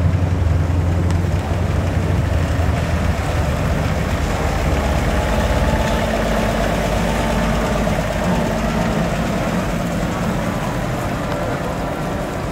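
Engine of a 1938 Chevrolet Master DL fire truck running as the truck pulls away and drives past. Its low hum is strongest in the first few seconds, then weakens and slowly fades as the truck moves off.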